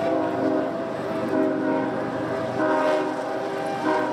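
Train's locomotive horn blowing a chord in a run of repeated blasts, about half a second each, with short gaps between them.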